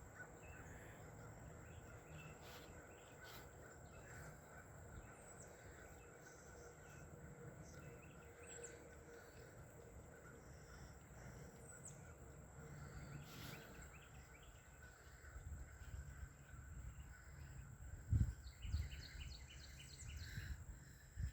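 Faint outdoor ambience with a steady high tone, a few short bird chirps scattered through it, and a quick run of chirps near the end. A couple of low thumps come near the end.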